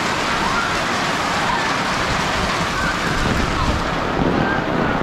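Steady rain falling on the street and roofs, with children's voices faintly in the background.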